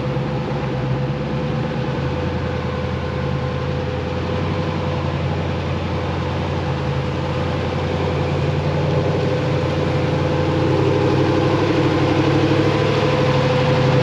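Engine of a Goatbuilt Ibex tube-chassis rock buggy running at low revs as it crawls through a rutted trail, steady at first and growing louder over the last few seconds as the buggy draws near.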